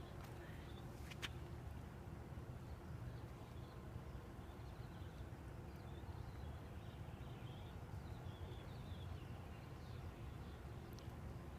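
Outdoor ambience: a steady low background rumble with faint bird chirps now and then, and a single sharp click about a second in.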